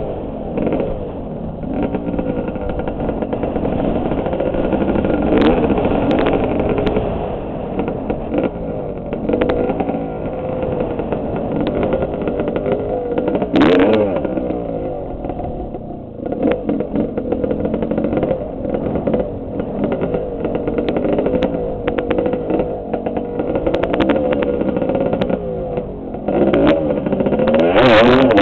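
Dirt bike engine revving up and down as the bike is ridden over rough, grassy hillside, with scattered knocks from the bumps. The revs climb sharply near the end.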